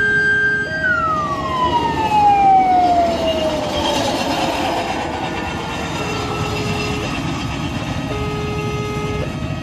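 Railway level-crossing warning: a motor siren holding a high pitch and then winding down in one long falling glide over about five seconds, while an electronic alarm keeps alternating between two notes, a low one and a higher one.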